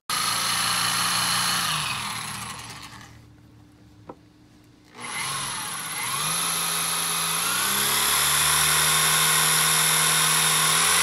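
Hand-held electric drill drilling out a bolt snapped in a Rotax jet ski engine's manifold. The drill runs, winds down after about two seconds and stops, with a small click during the pause, then starts again about five seconds in, speeding up and then running steadily.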